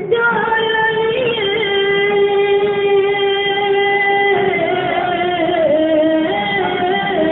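A naat sung in a single voice, holding long notes that bend slowly in pitch.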